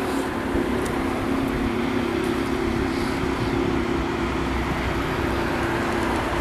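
Steady road traffic noise with a constant low engine hum underneath.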